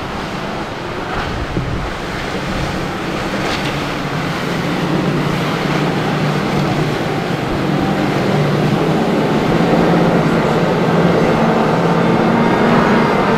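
Motorboat engine running, growing gradually louder, over wind buffeting the microphone and the wash of waves.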